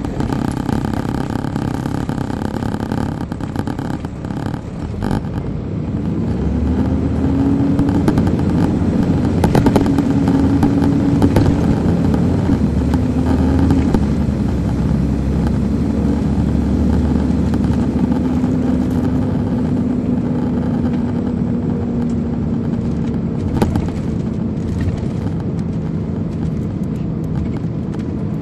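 Caterpillar C13 ACERT six-cylinder diesel of an MCI D4500CL coach pulling hard: the engine note climbs from about six seconds in, drops once near the middle as the Allison automatic shifts up, then holds and eases off slowly. A few knocks and rattles in the first seconds.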